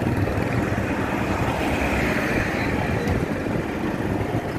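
Steady engine and road noise from a moving vehicle, with a low rumble and passing street traffic.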